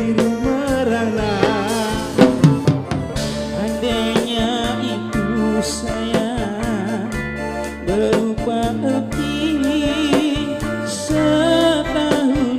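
Live band music: electronic keyboard and electric guitar with a singer's voice and a bass line.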